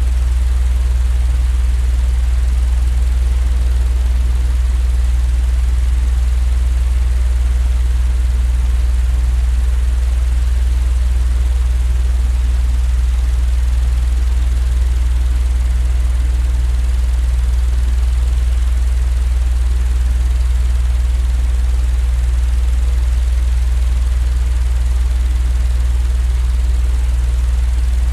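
Electric fan running steadily: a strong, constant low hum with a light airy hiss above it.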